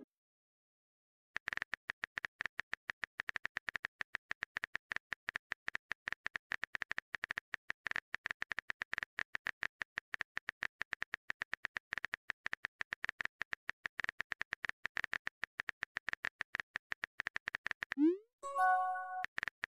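Rapid, steady clicking of a texting app's keyboard typing sound effect. Near the end, a short rising pop followed by a brief chime, a message-sent sound.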